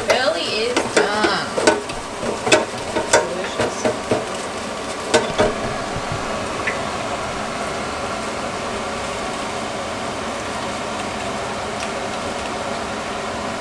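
Hot oil sizzling in an electric deep fryer as the wire basket of floured abalone is lifted out to drain. Several sharp metal clinks and knocks of the basket come in the first half, then a steadier, softer sizzle.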